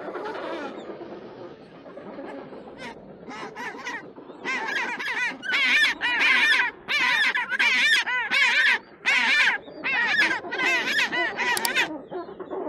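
Penguin braying: quieter honking at first, then from about four seconds in a run of about nine loud, harsh honking calls in quick succession.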